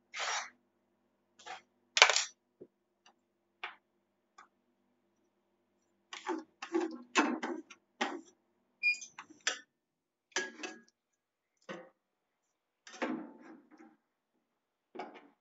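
Metal spatulas tapping, clinking and scraping on a rolled-ice-cream cold plate: a few separate sharp clicks at first, then a quick run of chops and scrapes near the middle, then scattered strokes.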